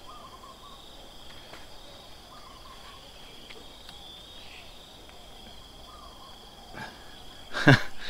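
Insects, crickets or cicadas, droning in one steady high-pitched tone, with a few faint distant bird calls. A brief loud thump near the end.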